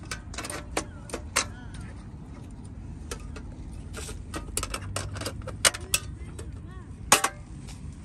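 Irregular sharp clicks and metallic clanks from a portable gas stove as a new gas canister is fitted, the loudest a little before six seconds in and again about seven seconds in. Faint voices sound in the background.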